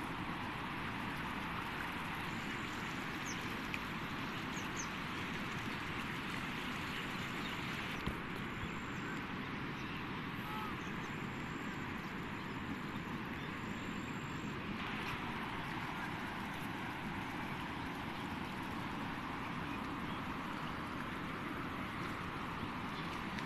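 Steady rushing of floodwater flowing over and through flattened crop fields, with one brief click about eight seconds in.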